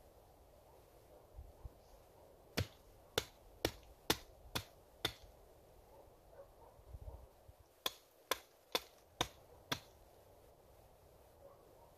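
Small hatchet chopping at a wooden pole: six sharp strikes about two a second, a short pause, then five more.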